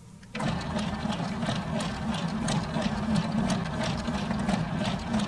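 A motor-driven machine switches on about a third of a second in and runs steadily with a low hum and a quick rhythmic clatter, about four beats a second.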